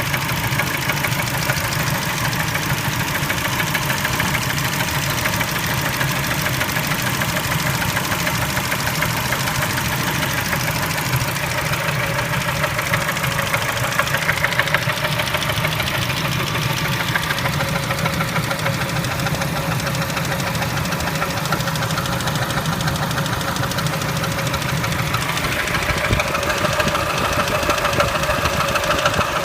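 Kia Spectra's engine running steadily with a fast, regular knock.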